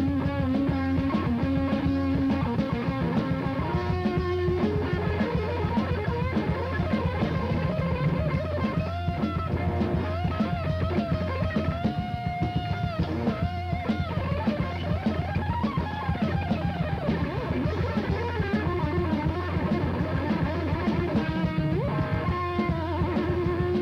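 Live thrash metal band playing an instrumental passage: electric guitar with bent, held notes over bass and a busy drum kit.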